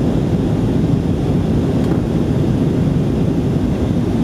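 Steady cabin noise of an Airbus A320 in flight, heard from inside at a window seat: an even low rumble with no change.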